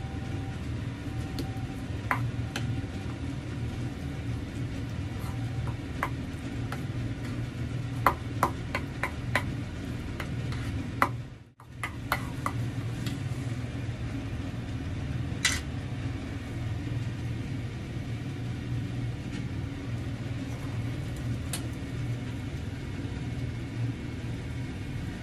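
Metal spoon clinking and scraping against a stainless steel bowl while mashing cooked pumpkin, with a run of sharp clinks between about six and ten seconds in, over a steady low hum.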